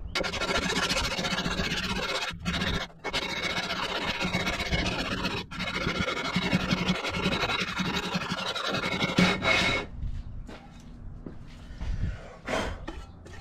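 Cast iron 1961 Cadillac exhaust manifold being scrubbed back and forth on wet 80-grit sandpaper over a granite slab, a coarse grinding scrape with a few brief breaks as the strokes change. This is the warped head-mating face being planed flat so the gasket will seal. The scraping stops about ten seconds in, and there is a short knock near the end.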